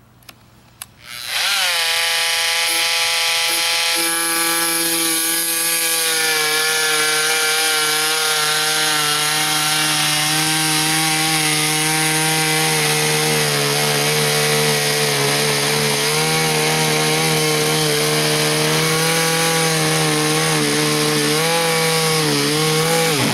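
Dremel Velocity VC60-01 corded oscillating multi-tool with a 7-amp motor switching on about a second in, its pitch rising as it comes up to speed, then running steadily as its blade cuts along a line in a wooden panel. In the second half the pitch sags and wavers as the blade loads up in the cut, and the tool stops abruptly at the end.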